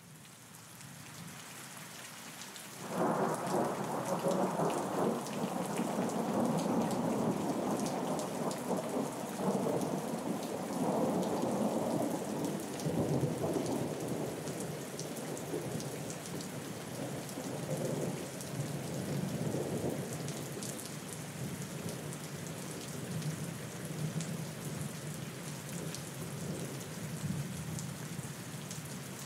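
Steady rain fading in, then a long roll of thunder that breaks in about three seconds in and rumbles on in swells, slowly dying away under the rain.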